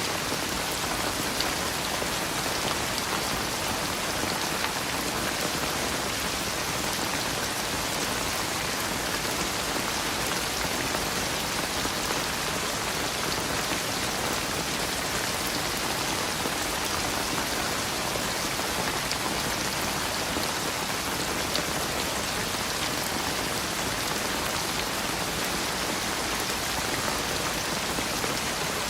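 Steady rain falling, an even hiss of many drops with faint scattered drips and no change in intensity.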